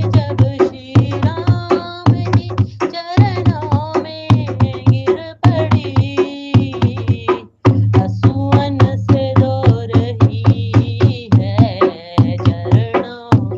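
Hindi devotional song: a voice singing a melody over a steady, fast hand-drum beat and bass.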